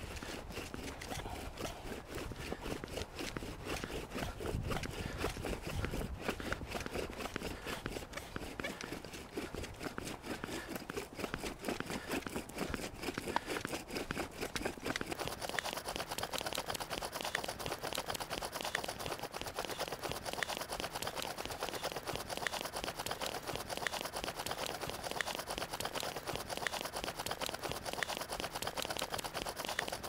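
Bow drill in use: a wooden spindle spun back and forth by a bow, grinding into a birch chaga fungus hearth in steady rhythmic strokes as the friction builds heat toward an ember.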